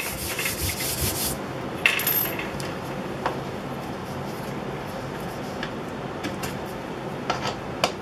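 Hands rubbing and handling at a wooden kitchen cabinet door, with a sharper click about two seconds in and a few light clicks and taps after it, as the door is opened and a cabinet handle and its screws are fitted by hand.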